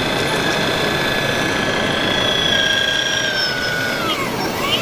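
Radio-controlled Volvo EC480D hydraulic excavator model working, its drive giving a steady high whine that sinks in pitch and climbs back up near the end as the boom lifts a loaded bucket.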